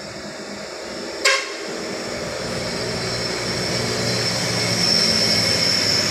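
Heavy diesel engines of a tanker truck and a tour bus crawling through a tight bend, growing louder as they draw near. A single sharp knock comes about a second in, and a high steady whine joins near the end.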